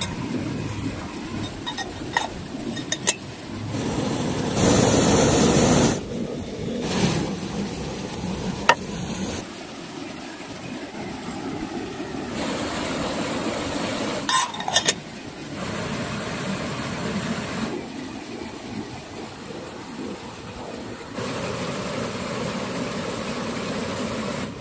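Gas-canister camp stove burning under a kettle: a steady hiss and roar from the burner. Its level changes abruptly several times, and a few light clicks come through.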